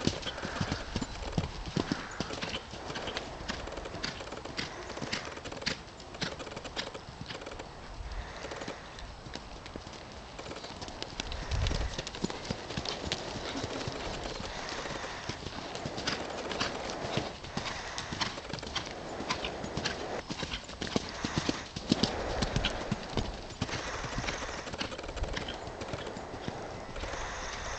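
Horse's hooves striking a sand riding-arena surface as it is ridden around the school, mostly at a trot, making a run of irregular clicks and thuds. A few low rumbles come through along the way.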